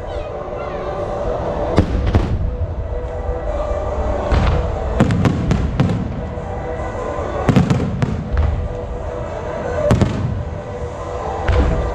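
Aerial fireworks shells bursting, a sharp bang every second or two with a quick cluster of cracks about five seconds in, over music with steady held notes.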